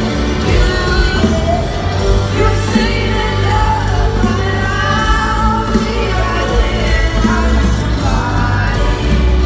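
Live pop band music with lead vocals, played loud through an arena sound system and heard from the crowd.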